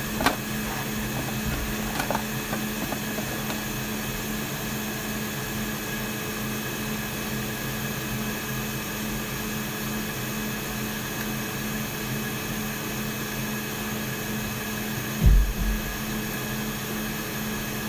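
Steady hum and fan noise from electronics-repair bench equipment, with one dull thump about fifteen seconds in.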